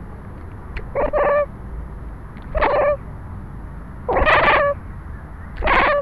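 Cat meowing repeatedly close to the microphone: four short calls, about one every second and a half.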